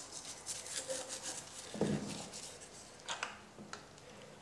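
Stiff brush scrubbing the metal needle-bar mechanism of an antique sewing machine head during cleaning, a quick run of short scratchy strokes. Just before two seconds in comes a dull knock, followed by a few light clicks.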